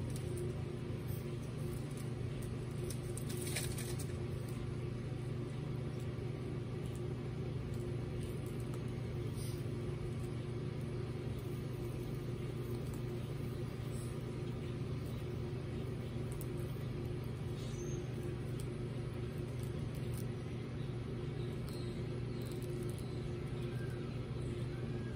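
A steady low mechanical hum, with a few faint clicks and rustles from baby Aldabra tortoises feeding on lettuce.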